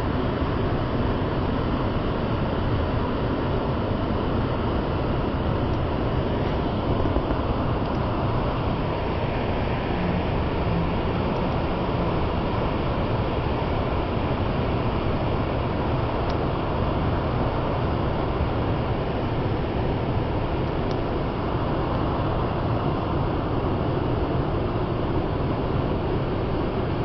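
Large waterfall pouring steadily: an unbroken rush of falling water, heaviest in the low end, with no change in level.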